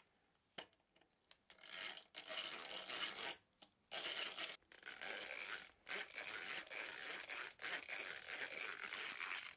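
Footprint 150A hand drill boring a twist bit into a strip of wood: a rasping cut that starts about a second and a half in and goes on in long spells with several short pauses. A couple of light clicks come just before it.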